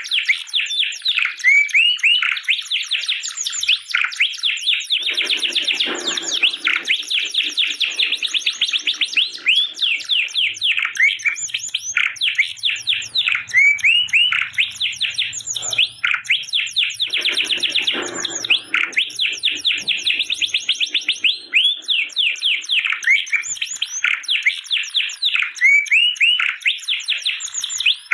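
Domestic canary singing one long unbroken song of fast repeated chirps and rising trilled notes. Lower, rolling passages come about five and seventeen seconds in.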